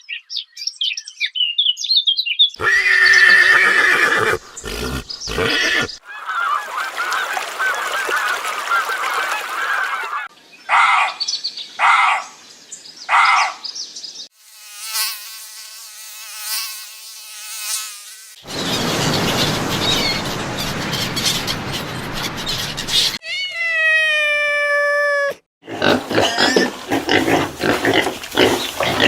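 A string of different animal calls cut one after another, each a few seconds long: chirping, three short calls about a second apart, a pitched trill, and a drawn-out call that falls in pitch.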